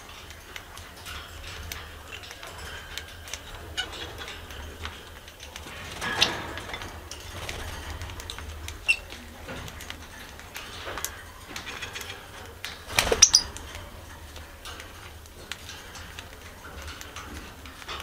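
Pet parakeets in a cage: scattered short high chirps and clicks, with two brief louder flurries about six and thirteen seconds in.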